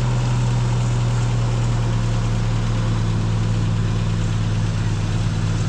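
An engine running steadily at idle, an even low hum.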